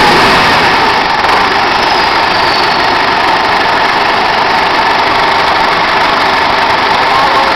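Engine idling loudly and steadily, settling down from higher revs in the first second.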